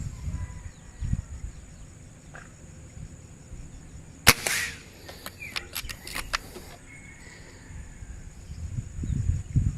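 Gamo Chakal air rifle firing one shot about four seconds in, a single sharp crack, followed by a run of lighter clicks over the next two seconds. Low rumbling handling or wind noise is heard near the start and end.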